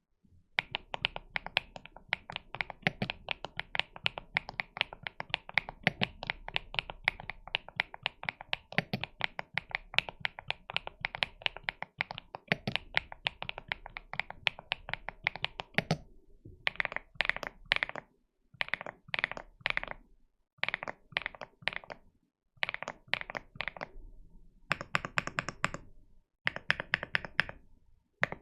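Typing on an AKKO MU01 mechanical keyboard with KD200 switches: fast, continuous keystrokes for about sixteen seconds, then short bursts of rapid keystrokes with brief pauses between them.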